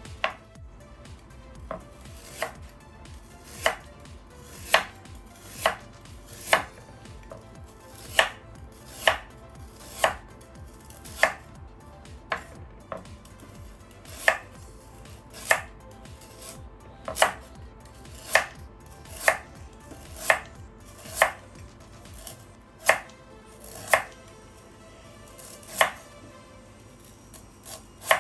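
Steel Chinese cleaver chopping through vegetables onto a wooden chopping board: single sharp chops, roughly one a second at an uneven pace.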